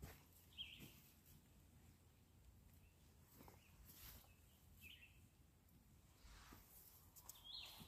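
Near silence with three faint, short bird chirps, about half a second in, around five seconds in, and near the end.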